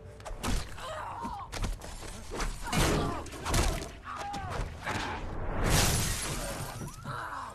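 Film action-scene sound: a man yelling amid repeated thuds and impacts, then a loud crash of car windshield glass shattering about six seconds in.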